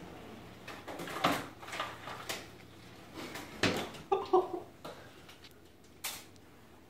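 Kitchen cabinet doors and drawers being opened and shut and things handled on the counter: a run of knocks and clatters, with the sharpest ones about a second in, near four seconds and once more near the end.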